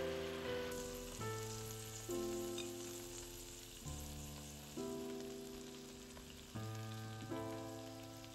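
Soft piano music, a new chord struck every second or two and left to fade, over a faint steady sizzle of food frying in oil in a pan.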